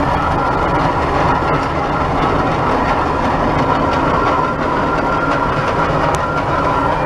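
Climax geared steam locomotive hauling a passenger train: rapid exhaust chuffing over the running noise and clatter of the cars on the rails.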